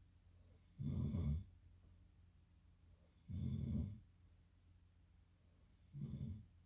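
Snoring in a steady rhythm: three short snores, each about half a second long, coming roughly every two and a half seconds.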